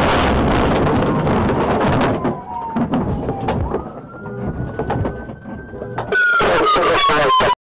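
A car rolling over in a crash: loud crashing and scraping for about two seconds, then scattered knocks as it comes to rest on its side. A siren tone rises and holds, then falls loudly near the end before cutting off abruptly.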